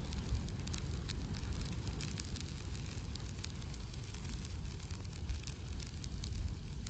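An open fire burning a recliner, crackling and popping over a steady low rumble.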